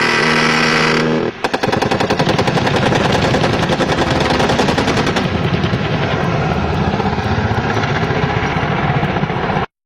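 An aircraft-mounted automatic gun firing one long, very rapid burst over the helicopter's engine noise. The burst begins about a second and a half in and cuts off abruptly near the end. A steady pitched tone sounds in the first second.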